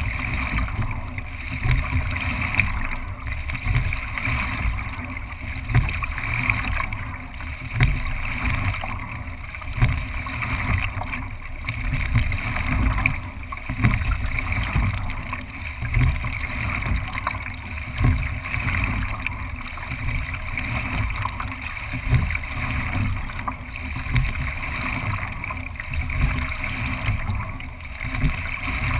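Racing single scull being rowed at a steady rate, with a thud and surge about every two seconds at each stroke, over water rushing along the hull and wind rumbling on the bow-mounted camera's microphone.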